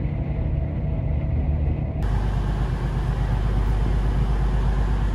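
Train running, heard from inside the carriage as a steady low rumble. About two seconds in it cuts abruptly to a steady, hissier rush of noise.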